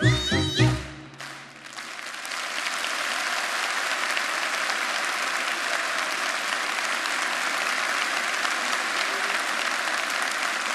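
The last sung and played notes of a folk song end about a second in, then a large audience applauds steadily.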